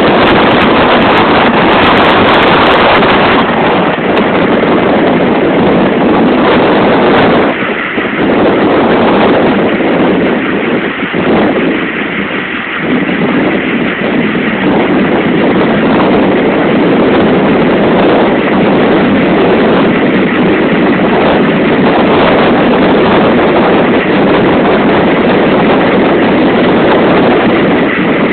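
Boat motor running steadily under loud wind noise on the microphone, with brief dips in the rush in the first half.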